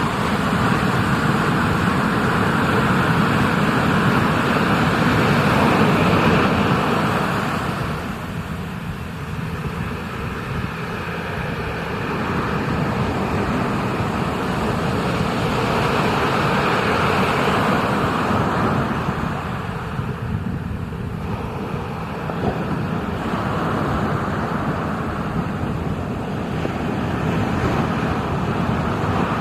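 Ocean surf rushing and breaking, a steady roar that swells and eases in long surges every several seconds.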